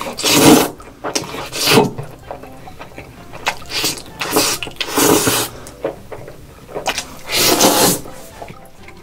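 A person loudly slurping long noodles in red sauce, about six slurps: long ones near the start and near the end, shorter ones between.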